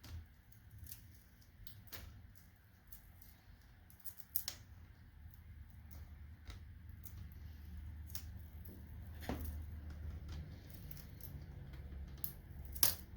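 Plastic screen bezel of a Dell Latitude E5450 laptop being pried off with a pry tool: scattered sharp plastic clicks and snaps over soft handling noise, the loudest about four seconds in and near the end.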